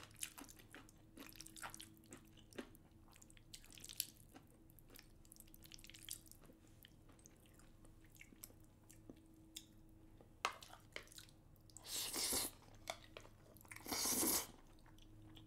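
Faint clicks and wet squishing of chopsticks working through saucy black bean noodles and rice cakes in a metal pan, then two short, louder slurps of noodles near the end, with chewing.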